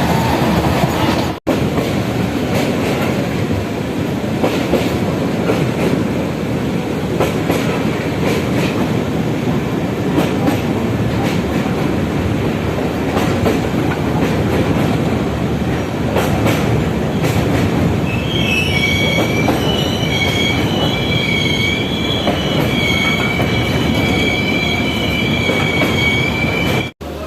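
Passenger train running on the rails, a steady rumble with regular clacks from the wheels crossing rail joints. About two-thirds of the way in, a high wavering wheel squeal sets in and continues, typical of wheels grinding on a curve or under braking.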